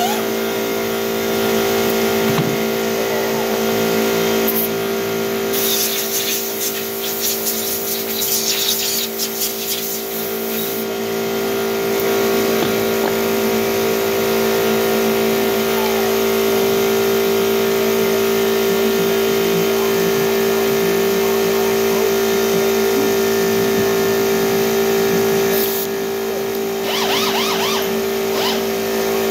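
Compressed-air blow gun hissing as it blows out the cooling fins of an Evolution V-twin engine, over a steady hum. The rush of air grows stronger and more broken from about five to eleven seconds in, and again near the end.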